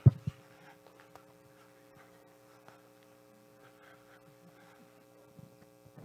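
Steady electrical mains hum, with two sharp thumps just after the start, the first much louder than the second.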